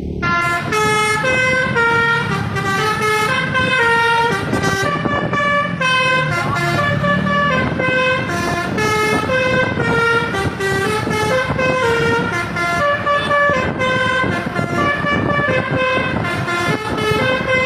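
Bus basuri (telolet) multi-tone air horn playing a melody of short held notes, one after another, with the bus engine running underneath.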